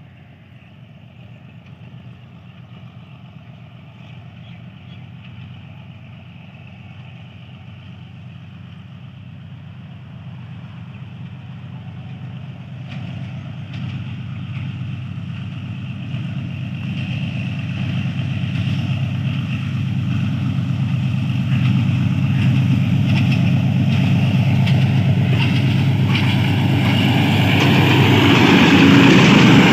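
Pakistan Railways HBU-20 diesel-electric locomotive running under power at notch 6, its engine drone growing steadily louder as it approaches, with wheel and rail noise rising over the second half. It is loudest near the end, as the locomotive draws alongside.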